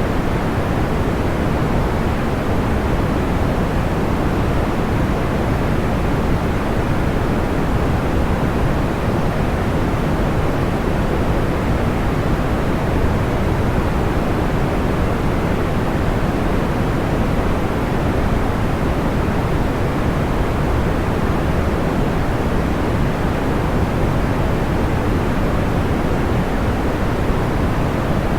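Steady, unchanging noise of the kind used for sleep tracks, heavy in the low end and dull on top. No separate crackles or pops stand out.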